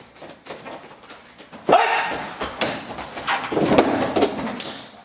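Short, sharp shouts and grunts of effort from two men grappling in a jiu-jitsu bear-hug escape and takedown. They begin suddenly about two seconds in, with a second burst a little later.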